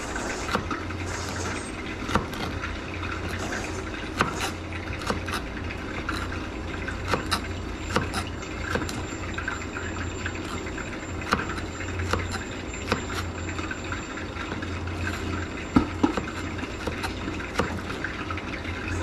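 Chef's knife chopping ginger on a plastic cutting board: irregular knocks of the blade on the board, roughly one a second, over a steady rushing noise.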